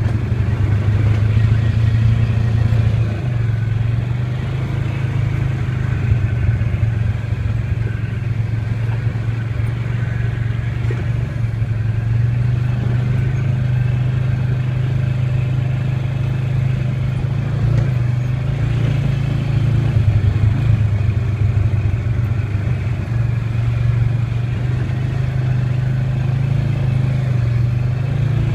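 Off-road vehicle engine running steadily as it travels a rough dirt trail, its low drone easing and picking up slightly now and then, with the vehicle rattling over the bumps.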